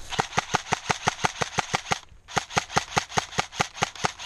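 Airsoft rifle firing rapid shots, about six a second, with a short break about two seconds in.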